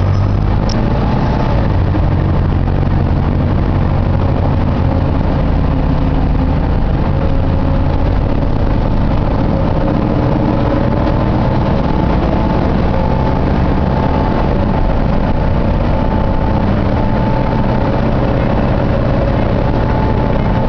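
Optare Solo bus running, with a steady low engine and road rumble. A whine rides over it and becomes clearer about halfway through.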